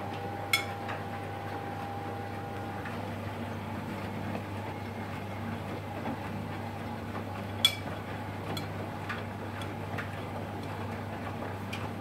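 Miele TBK140 WP heat-pump tumble dryer running on its Cotton Extra Dry program, drum tumbling tea towels: a steady low hum with a thin whine that fades out about three seconds in. Sharp clicks from inside the drum, two louder ones about half a second and seven and a half seconds in, and a few fainter ones later.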